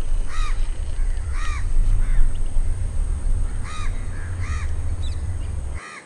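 Birds giving harsh, arched calls: five loud ones at uneven intervals, with fainter calls between, over a steady low rumble. The sound fades out at the very end.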